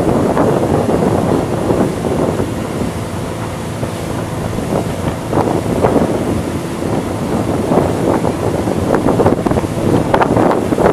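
Wind buffeting the microphone of a boat underway, a loud rushing roar that eases a little a few seconds in and gusts louder again near the end, with the rush of water along the hull beneath it.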